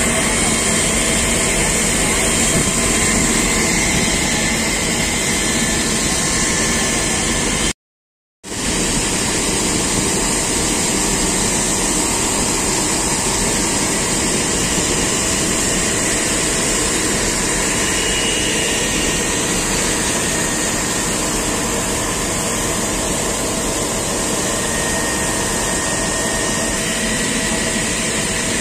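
Fire trucks running their pumps with high-pressure water jets spraying from the hoses: a steady, loud rush and hiss over engine noise. It cuts out completely for about half a second around eight seconds in.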